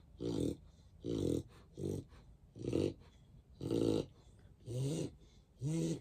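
Mixed-breed dog snoring: a run of about seven buzzy breaths, roughly one a second. The last two carry a rising-and-falling pitched tone.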